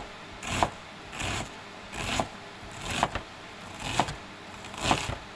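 Kitchen knife slicing crosswise through a scored onion half on a cutting board to dice it, about one cut a second. Each stroke is a short crunching slice that ends in a sharp knock of the blade on the board.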